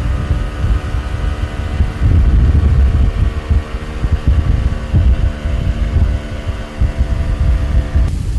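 An engine running steadily with a hum at a constant pitch, over heavy low rumble of wind buffeting the microphone. The engine hum ends abruptly near the end.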